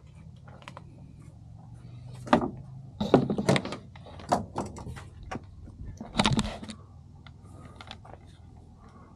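Knocks, clicks and rustles of a bike helmet and its camera mount being handled and fitted right against the microphone, the loudest knocks coming about two, three and six seconds in.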